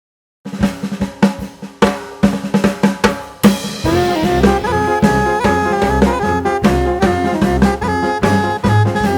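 Background music: a drum kit plays an intro of snare and bass-drum hits starting about half a second in, then a full band with sustained melody notes and bass joins partway through.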